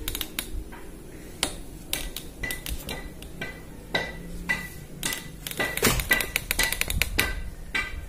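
Irregular light clicks and knocks from hands handling a metal-and-glass egg incubator, some with a brief metallic ring. They come closer together and louder in the later half.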